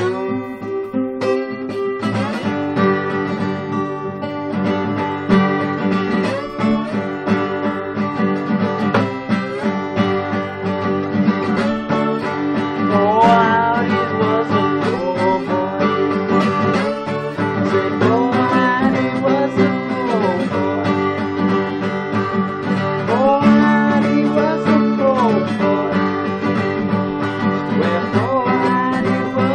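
Solo acoustic guitar playing a blues tune, continuous throughout.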